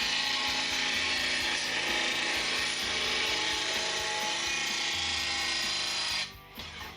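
R.B.G. 2181 P blade grinder's wheel grinding the edge of a steel lawn mower blade, a steady hiss that stops about six seconds in.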